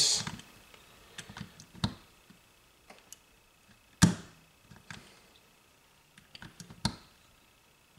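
Light metal clicks and taps as a small socket presses a new push nut down onto the shaft in a rebuilt Mitsuba Honda Accord starter, with one sharp, louder click about four seconds in.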